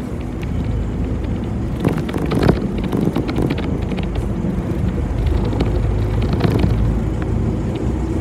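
City bus on the move, heard from on board: a steady low engine and road rumble with scattered clicks and rattles.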